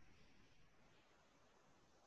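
Near silence: faint background noise.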